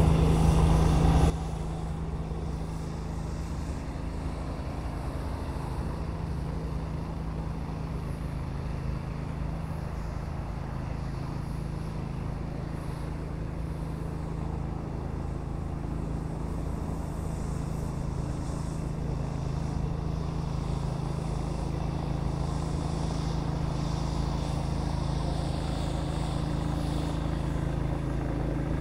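Steady drone of an engine-driven pressure cleaner running at constant speed. It is louder for the first second or so, then holds level.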